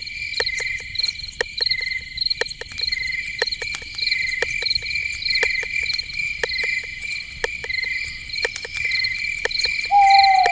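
Crickets chirping in steady pulsed trills over a night-forest background, with sharp ticking clicks about twice a second. Near the end, a short falling animal call is the loudest sound.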